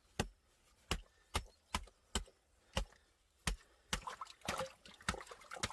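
A series of sharp knocks or chopping strikes, about a dozen, irregularly spaced and coming faster in the second half.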